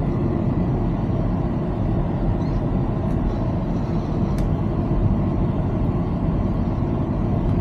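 A van running, heard from inside its cabin: a steady low rumble of engine and road noise, with two faint clicks in the middle.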